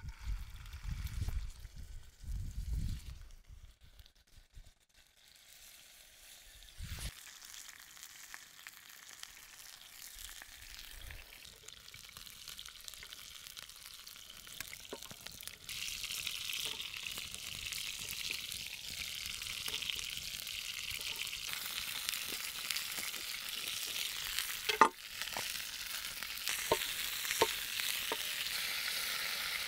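Tied beef tenderloin roll frying in a pan: a sizzle that starts faint and grows steadily louder and brighter, with a few low thumps in the first seconds and one sharp tap near the end.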